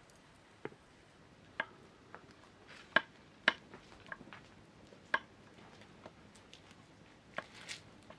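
Knife slicing mushrooms on a wooden cutting board: sharp, irregular taps of the blade striking the board, about nine over the stretch, the loudest two close together near the middle.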